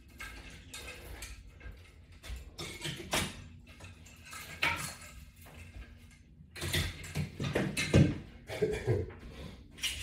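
Scattered clicks and knocks of latch-bar exercise equipment and its resistance-band attachments being handled and hung on a wall rack, with louder knocks about seven to eight seconds in.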